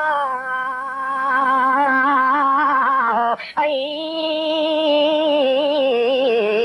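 A single voice holding two long drawn-out sung notes with a wavering vibrato, broken by a short pause about halfway: melodic chanting within a sermon.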